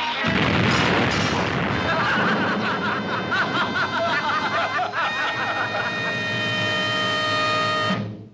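A sudden loud bang with a noisy rumble trailing off over about two seconds: a film sound effect for the taxi's engine blowing up. Comic film music follows with warbling figures, then long held chords that stop about eight seconds in.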